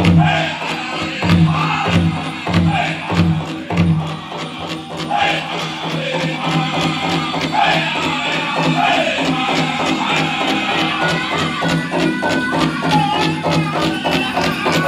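Powwow drum group playing a chicken dance song: singers' voices sliding up and down over a big drum. The drum gives heavy strokes about twice a second for the first few seconds, then lighter, quicker beats.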